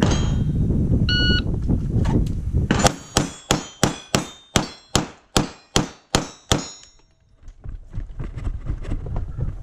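A shot-timer start beep about a second in, then a fast string of about a dozen semi-automatic pistol shots roughly a third of a second apart. Each shot is followed by a brief high ring from the steel plate targets being hit. A low rumble runs under the first few seconds.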